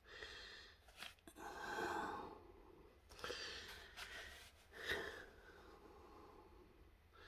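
A person breathing close to the microphone, a few breaths in and out, the loudest about two seconds in. Two sharp clicks about a second in.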